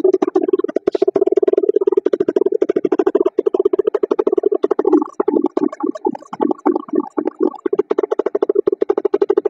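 Koshine 50cc kids' dirt bike's 49cc air-cooled two-stroke engine running just after a kick start, a rapid buzzing train of firing pulses. About five seconds in the beat slows and goes uneven for a couple of seconds, then evens out again. Heard through a phone microphone that leaves it unclear.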